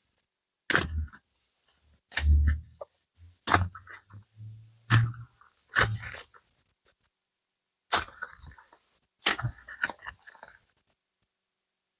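Super clay packaging being handled and opened by hand: irregular sharp taps and crackles, some with dull thumps, coming in short clusters with a pause around the middle.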